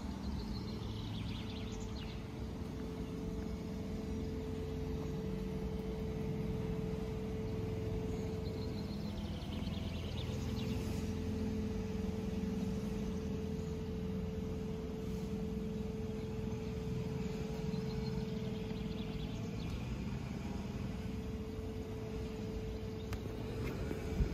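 Outdoor background of a steady low rumble and a constant machine hum, with birds chirping briefly a few times.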